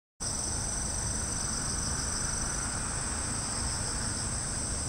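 Outdoor summer ambience: a steady, high-pitched insect chorus that holds unbroken over a low background rumble, cutting in suddenly right at the start.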